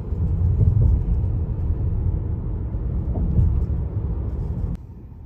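Low rumble of a car on the move, road and wind noise, which cuts off abruptly near the end.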